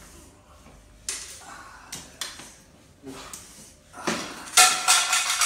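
Hands-on massage handling sounds: a few sharp hits about one and two seconds in, then a louder, noisier stretch near the end.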